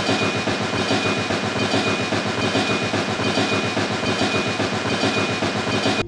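Toy steam locomotive running along its plastic track, a steady rhythmic chugging clatter; it cuts off suddenly.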